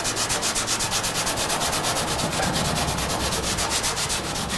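An old, water-sprayed Scotch-Brite scouring pad scrubbed back and forth over rust-killer-treated steel body edges in quick, even strokes. This is the water wash that neutralises the rust killer.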